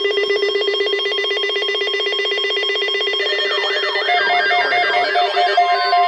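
Loud electronic emergency alert tone: a steady, buzzing ring. About three seconds in, warbling tones that sweep up and down and stepped higher notes join it.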